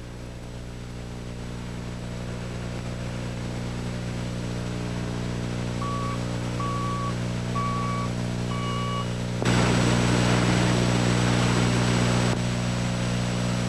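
Wheel loader's diesel engine running steadily and slowly growing louder, with four short beeps from its reversing alarm about six to nine seconds in. About nine and a half seconds in the engine sound jumps suddenly louder.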